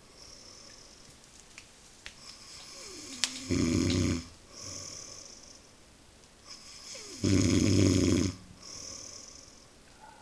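A man snoring, pig-like: two long, deep, rattling snores about four seconds apart, each followed by a softer hissing breath.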